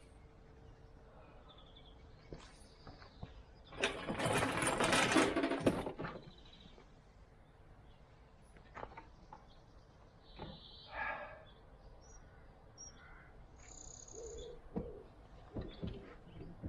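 Small birds chirping, with scattered knocks and clicks of handling, and one loud noisy sound lasting about two seconds, about four seconds in.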